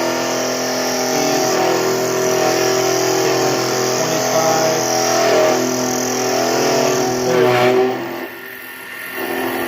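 Lathe parting tool plunging into a spinning aluminum ring blank, a loud squealing chatter made of several steady tones held together. It drops off briefly about eight seconds in, then picks up again.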